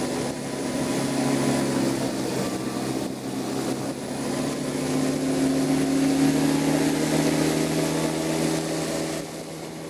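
A small aircraft's motor and propeller running steadily with a low hum, over a wash of air noise. It eases off slightly near the end.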